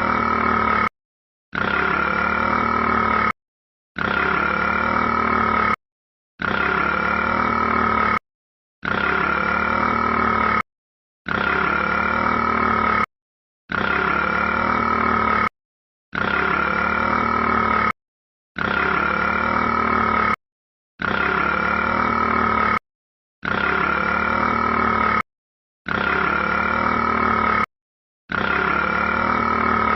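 The looped 'burping rat' sound clip: the same drawn-out burp-like call of about two seconds, repeated identically about every two and a half seconds with a brief silence between each.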